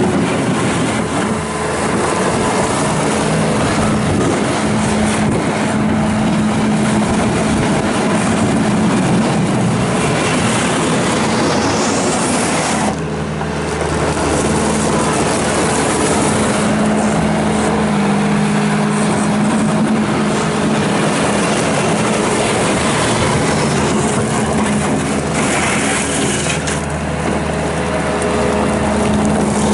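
Bobcat S650 skid steer loader's Kubota diesel engine running steadily at working throttle, its pitch shifting a little as it works, with a brief drop in level about halfway through.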